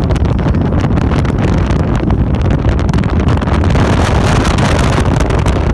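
Strong wind buffeting the microphone on a speeding open motorboat, mixed with the steady noise of the boat running over the water.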